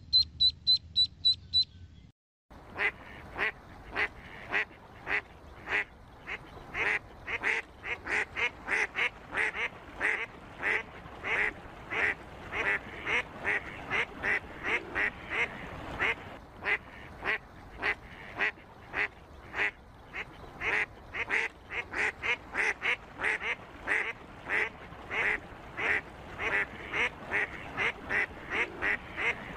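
A rapid run of high beeps for about the first two seconds, then, after a short gap, ducks quacking over and over, about two to three quacks a second.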